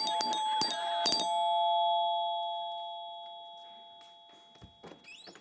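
Doorbell chime rung repeatedly: several quick ding-dong strikes in the first second, then the last two tones ring on and fade away over about three seconds.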